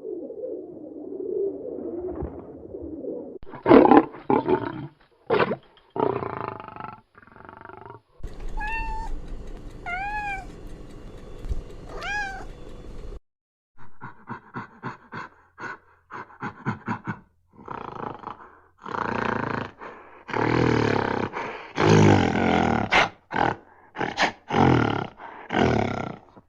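A series of different animal calls, one kind after another: a low drawn-out call, then loud cries, a run of short arched calls about every second and a half, rapid short calls, and harsh noisy calls near the end.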